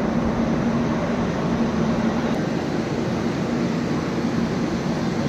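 Train coaches humming steadily beside the platform: an even rushing noise with a constant low drone.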